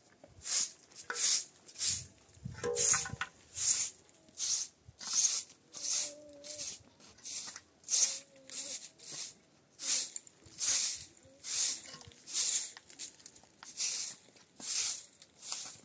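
Broom sweeping a concrete floor: rhythmic brushing strokes, about one and a half a second.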